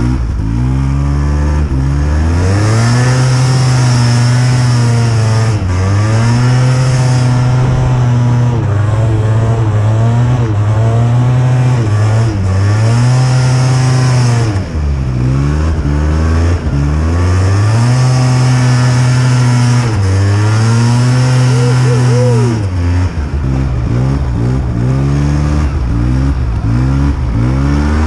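Arctic Cat Blast snowmobile engine revving up and easing off over and over as it is ridden through deep powder, its pitch rising and falling every couple of seconds.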